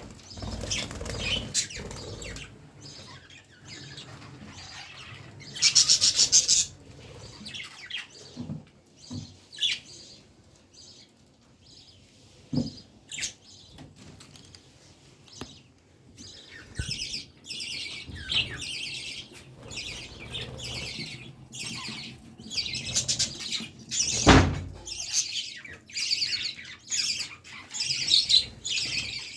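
Pet budgerigars chirping and chattering in short bursts, with one loud harsh call about six seconds in. Two sharp knocks stand out, the louder one near the end.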